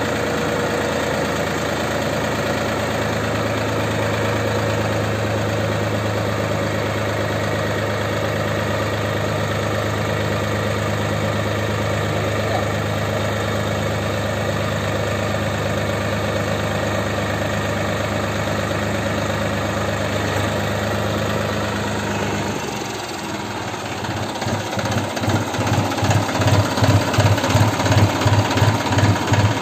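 Tractor diesel engine running steadily, driving a hydraulic pole-erection attachment. About 22 seconds in, the steady note drops away and gives way to a regular low pulsing, two or three beats a second, that grows louder.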